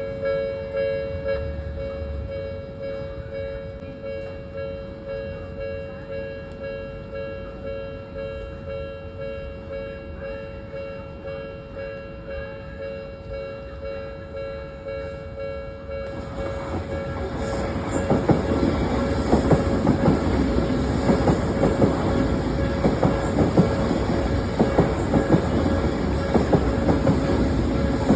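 Level-crossing warning bell ringing in a steady, repeating 'kan-kan' pulse. About halfway through, an Odakyu Odawara Line train comes over the crossing with a rising rush and the clatter of wheels over the rail joints, while the bell keeps ringing underneath.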